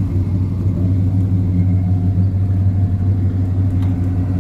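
Engine idling steadily with a deep, even rumble, running smoothly.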